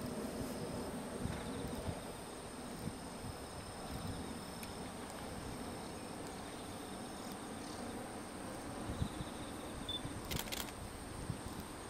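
Trackside outdoor ambience: insects chirring in one steady high-pitched tone over a low background rumble, with a single brief click about ten seconds in.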